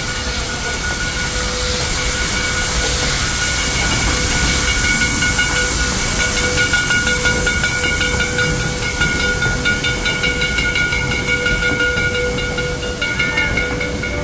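Steam train, locomotive No. 108 and its wooden passenger coaches, passing slowly: steam hissing over the low rumble of the wheels, with a fine regular clicking from the running gear and several steady high-pitched tones throughout.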